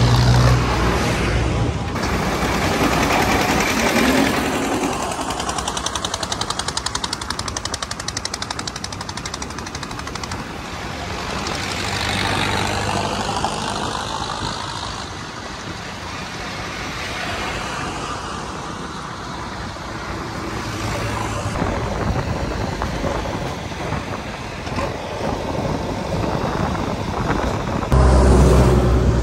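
Diesel tractor engines running as tractors pull trolleys along a road, with a fast, even putter from the exhaust for several seconds in the middle. The sound changes abruptly a couple of times where the footage is cut.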